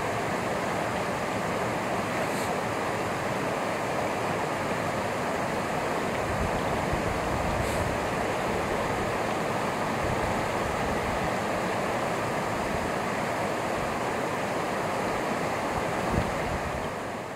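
Stream water flowing steadily, an even rushing with no break, fading out at the very end.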